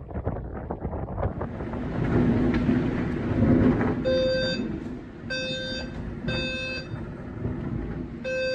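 Storm wind rushing and buffeting, with a heavier rumble a couple of seconds in. About four seconds in, an electronic alarm starts beeping: half-second beeps roughly once a second, with one longer gap.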